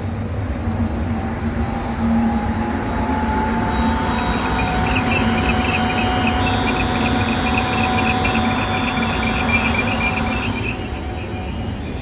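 Belt-driven supply fan motor of a Trane IntelliPack rooftop unit running on its VFD, with a steady hum and its V-belts squealing a little. A fast chirping rides over the squeal through the middle and fades before the end.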